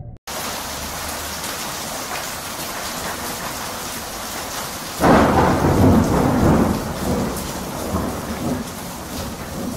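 Thunderstorm sound effect: steady rain hiss, with a loud roll of thunder about halfway through that fades over a couple of seconds.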